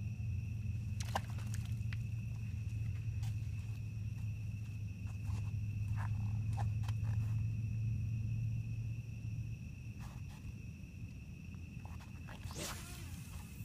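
Insects trilling at night in a steady high whine, over a low steady rumble that eases off about two-thirds of the way through. Scattered small clicks and knocks of handling, and a brief scrape near the end.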